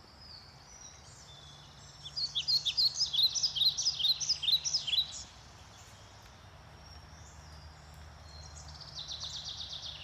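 A songbird singing: a quick run of high chirps lasting about three seconds, then a quieter, faster trill near the end.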